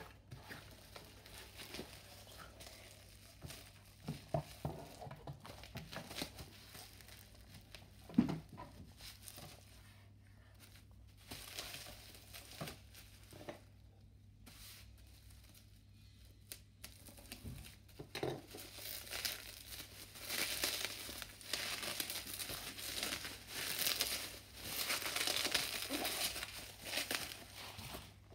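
Plastic bubble wrap crinkling and tearing as it is pulled apart and stripped off a package. The crinkling is densest and loudest over the last ten seconds. Before that come cardboard box handling, scattered knocks and one sharp thump about eight seconds in.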